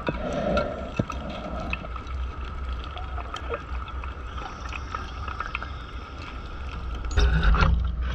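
Underwater sound from a scuba diver's camera: a steady low rumble with scattered small clicks, then a loud rush of exhaled breath bubbles a little after seven seconds in.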